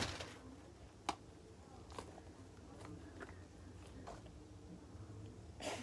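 Faint handling noises: a few soft, separate clicks and light rustles as a fidget toy is taken out and handled.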